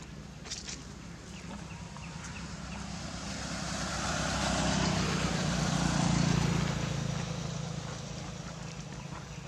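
A motorbike passing by on the road: its engine and tyre noise grow louder, peak about six seconds in, then fade away.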